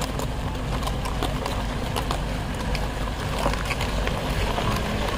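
Jeep Wrangler engine running as the SUV creeps forward at walking pace: a steady low hum, with scattered sharp clicks and knocks over it.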